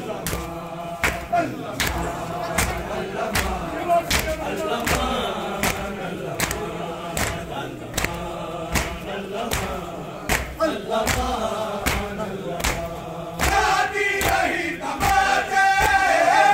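Crowd of men beating their chests in unison (matam), sharp hand slaps on a steady beat, under massed male chanting of a noha. The chanting swells louder near the end.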